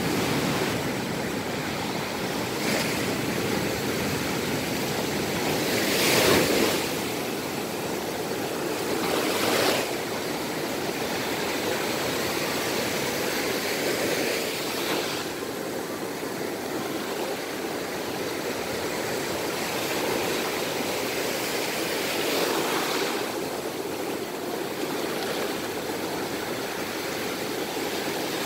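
Ocean surf breaking and washing up a sandy beach: a steady rushing wash that surges louder several times as waves crash.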